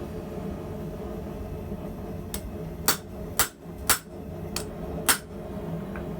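Blacksmith's hammer striking hot steel at the anvil while forging tongs: about six sharp blows roughly half a second apart, over a steady low hum.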